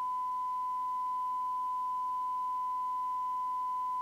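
Steady, unwavering test tone with faint overtones from the Uniden Uniace 100 CB radio's receiver: the signal generator's tone-modulated test signal recovered by the FM detector while detector coil L19 is trimmed for maximum recovered audio. It holds constant because the detector is already correctly aligned.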